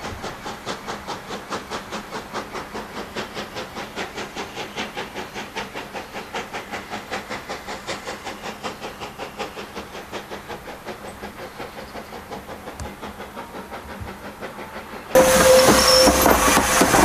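Steam locomotive working a train away from the listener, its exhaust beats coming about four a second and slowly fading. Near the end a sudden, much louder close-up of a steam locomotive rolling slowly over pointwork takes over, with a brief steady squeal.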